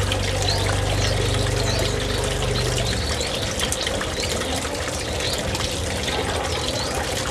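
Water trickling and splashing steadily in a small rock bathing basin, with short high bird chirps repeating every half second or so. A low hum underneath stops about three seconds in.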